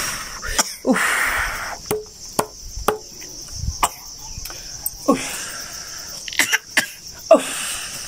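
Steady high chirring of an insect chorus, with a few sharp lip-smacking kisses, brief little vocal sounds and breathy puffs close by.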